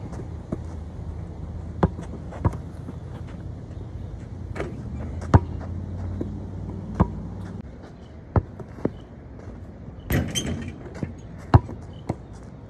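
Basketball bouncing on hard dirt ground: sharp single thuds at irregular intervals, with a brief, busier clatter of noise about ten seconds in.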